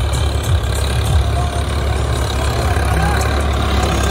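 Diesel tractor engine running steadily.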